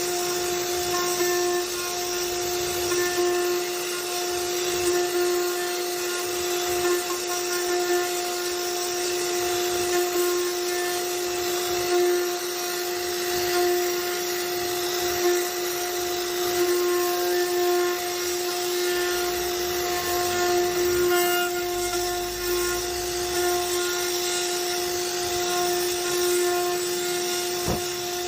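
CNC router spindle running steadily with a high whine while its bit cuts into wood, the cutting noise swelling and easing a little as the bit moves.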